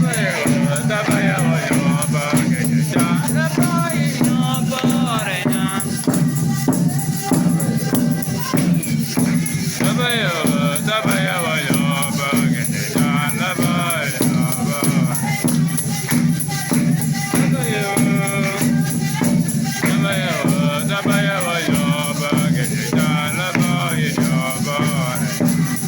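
Worship singing by a group of voices, with a shaker keeping an even rhythm over a steady low hum.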